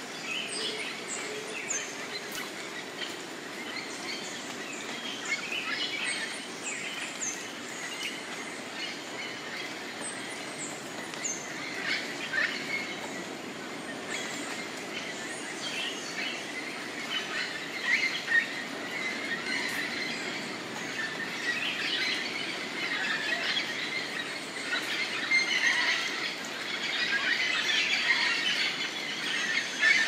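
A chorus of wild birds calling over a steady background hiss. Many short high chirps and quick falling notes fill the first third, and the calling grows busier and louder over the last ten seconds.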